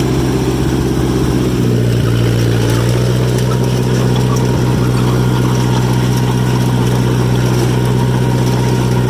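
John Deere 1010 crawler dozer's four-cylinder engine running steadily as the machine travels in third gear. The engine note changes slightly about two seconds in, then holds steady.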